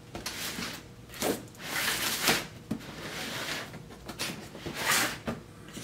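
A cardboard retail box being opened by hand: repeated scraping and rustling of cardboard, with a few sharp clicks between.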